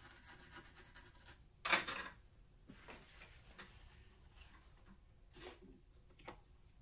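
A small brush scrubbing a printed circuit board in quick, fine strokes, then a sharp knock a little under two seconds in, followed by a few light clicks and handling sounds.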